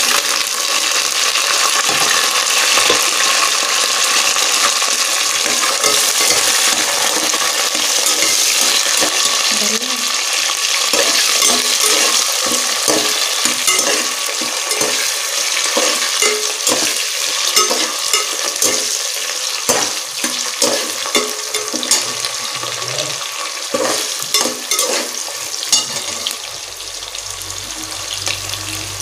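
Chopped onions and curry leaves sizzling loudly as they hit hot tempering oil in a pressure cooker, stirred with a steel ladle that clicks and scrapes against the pot. The sizzle eases a little near the end.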